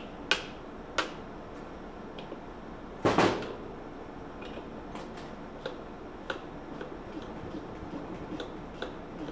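Hand tools clicking and knocking against the metal parts of a two-stroke golf cart engine being taken apart, with a louder clatter about three seconds in and small ticks after it.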